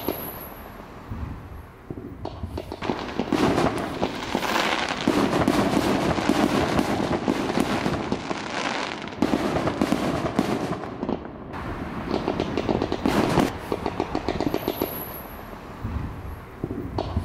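Fireworks display: a dense, rapid succession of bangs and crackling from aerial shells and rising comets, with a short lull about two-thirds of the way through before the crackling picks up again.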